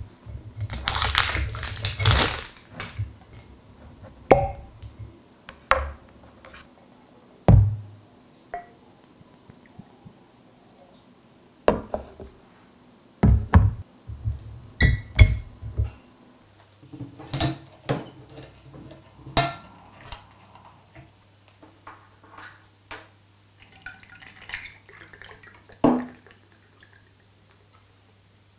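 Glass rum bottles being handled and opened: a cork stopper pulled from the neck, scattered sharp clicks and knocks of glass and caps on a hard tabletop, and rum poured into a small shot glass.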